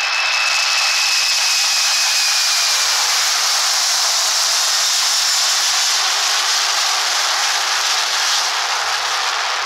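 Jet airliner engines at takeoff power: a loud, steady roar of rushing air with a thin high whine that slowly falls in pitch and fades near the end.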